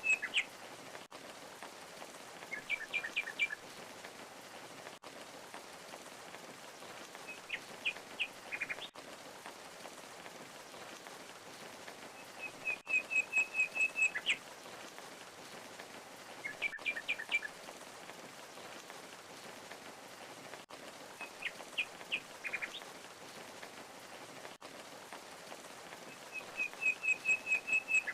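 Steady rush of falling water with a songbird calling over it: a fast trill of about eight notes, then short clusters of sharp chirps, the same sequence coming round again about every 13 to 14 seconds.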